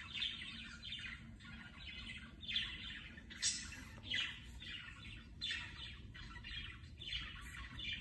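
Budgerigar chattering: a run of short chirps, about two a second.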